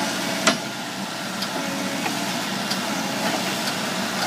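Case 580 Super N backhoe loader's diesel engine idling steadily, with a single sharp click about half a second in.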